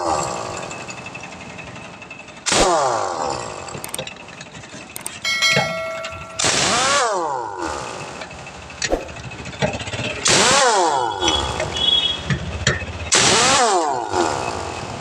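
Heavy-duty pneumatic impact wrench loosening the wheel nuts of a tractor trolley wheel, running in about five bursts; each burst starts loud with a whine that falls in pitch.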